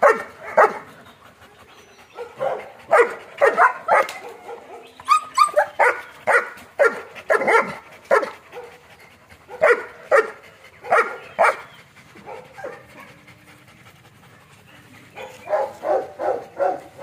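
German Shepherds barking repeatedly in irregular clusters of short barks, falling quiet for a few seconds past the middle, then a quick run of barks near the end.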